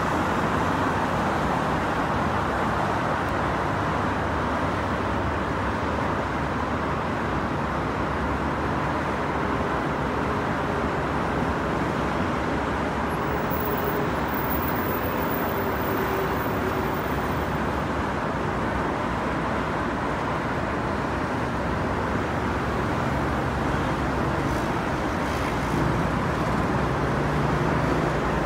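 Steady road traffic noise from a busy multi-lane highway, a continuous hum of cars and trucks passing. A deeper engine drone rises a little in the last few seconds.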